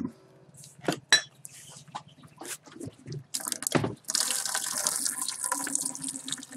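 Diesel fuel poured from the spout of a plastic fuel can into an empty plastic bucket: a steady splashing stream begins about four seconds in and keeps going. Before it, a few scattered knocks and clicks as the can is handled.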